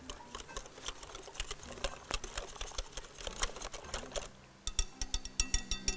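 Wire whisk beating thick batter in a glass bowl: quick, uneven clicking and tapping of the whisk against the glass, a few taps a second. Near the end come sharper, ringing clinks of the wire on the glass.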